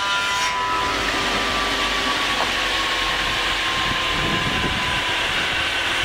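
Triumph 900 Premium horizontal band sawmill running as its saw head travels along the rail track; just after the start the sawing sound of the blade in the wood drops away, leaving the machine's steady whine, which slowly falls in pitch.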